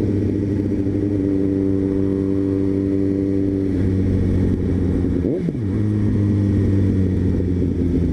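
Suzuki GSX-S750's inline-four engine running at cruising revs as the motorcycle rides along the highway. Its note drops a little about four seconds in, and there is a brief rise and fall in pitch just past halfway as the bike slows.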